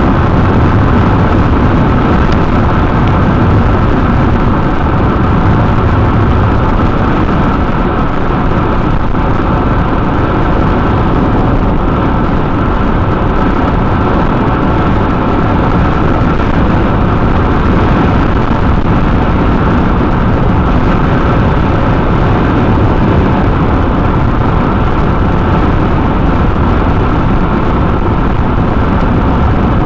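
Steady road noise heard from inside a car cruising at highway speed: tyres on the pavement and the car running, with a faint steady whine above it and no change throughout.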